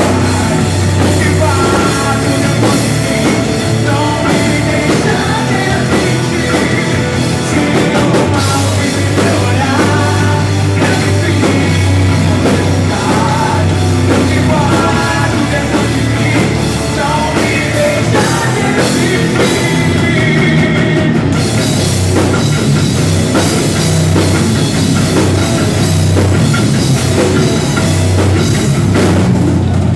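Rock song playing at full volume: a drum kit and band with a singing voice over it.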